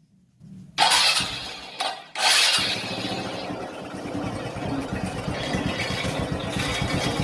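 Honda Supra X 125's single-cylinder four-stroke engine started about a second in and then running steadily with a rough, dense sound. This is the metal-on-metal grinding from the clutch housing that the mechanic suspects comes from something loose spinning there, either the clutch hub or the clutch bell.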